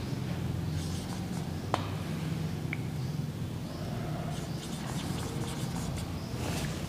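Marker pen writing on a whiteboard: faint scratchy strokes with a small click about two seconds in, over a steady low hum.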